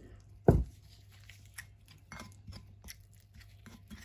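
Metal fork mashing and stirring a soft, wet orange mash on a ceramic plate: squishing with small scattered clicks and scrapes of the fork against the plate. One heavy thump about half a second in.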